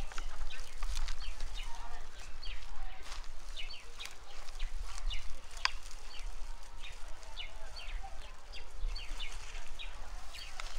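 Small birds chirping repeatedly in short notes over a low rumble.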